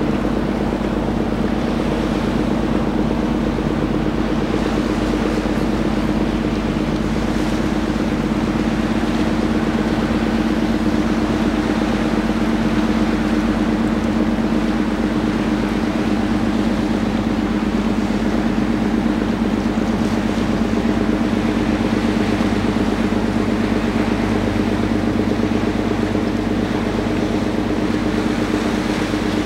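Container ship's engines running with a steady low drone, several held tones over a deep hum, as the ship passes.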